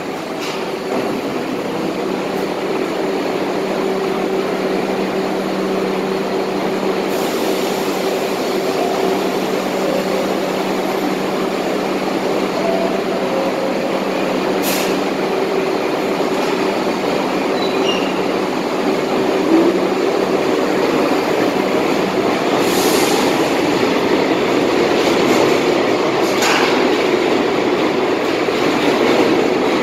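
An R62 New York City subway train stands at the platform with a steady hum, then pulls out and picks up speed, its running noise growing louder over the last ten seconds or so. A few short, sharp hisses stand out, one near the middle and two more later on.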